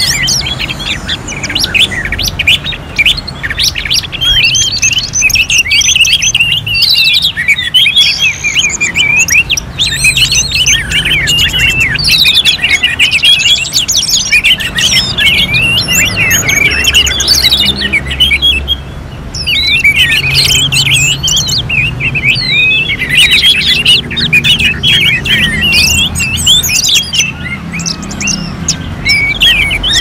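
Several orange-headed thrushes singing at once: dense, overlapping, fast-changing whistled and trilled phrases in a continuous chorus. The chorus briefly drops away about 19 seconds in.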